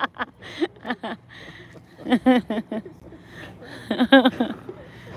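Indistinct speech in short phrases, over a low steady background hum.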